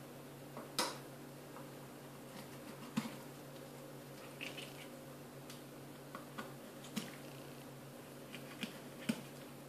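Filleting knife working through a little tunny on a wooden cutting board: scattered soft clicks and taps of the blade and handling, a few of them sharper, over a steady low hum.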